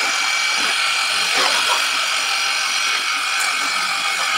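Xenon CDHPW2160 cordless pressure washer running: the steady sound of its battery-powered brushed pump motor under the hiss of the high-pressure water jet spraying onto a car's body panels.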